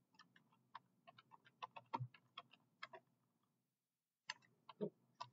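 Faint keystrokes on a computer keyboard as a short command is typed: a run of irregular clicks, a pause of about a second, then a few more clicks near the end.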